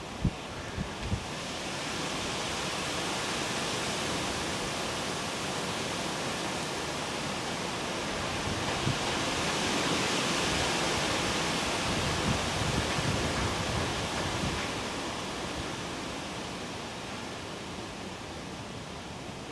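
Wind rushing through the trees in a steady hiss that swells in the middle and eases off toward the end, with a few low thumps of wind on the microphone near the start.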